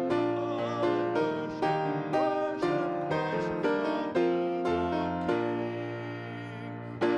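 Piano music playing a song's chords, struck about twice a second and left to fade. One chord rings out longer before a fresh one is struck near the end.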